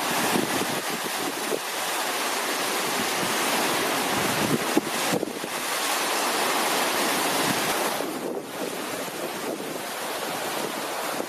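Sea surf washing onto a sandy beach, a steady hiss of breaking and receding waves, with wind buffeting the microphone; it eases slightly about eight seconds in.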